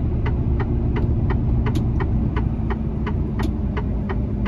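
Turn-signal indicator ticking evenly, about three clicks a second, in a truck cab over the steady drone of the diesel engine and road noise.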